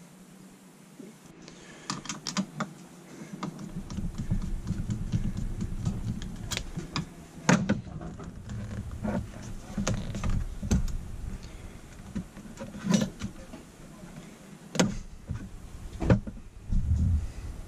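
Handling noise of a 2002 Yamaha Grizzly carburetor being turned over and taken apart on a cloth-covered bench: a low rubbing rumble with irregular sharp metal clicks and knocks as the carb body and small parts are moved and set down.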